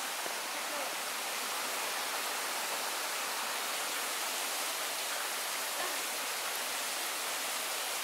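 Steady, even hiss of a low-flow waterfall: shallow water running across a rock ledge and falling over the drop-off.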